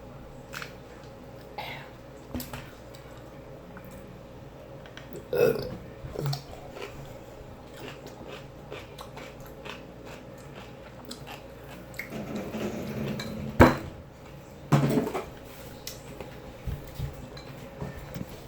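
A woman eating, with small chewing and mouth clicks, and several loud burps between them: one about five seconds in, a drawn-out one past the middle, and another soon after.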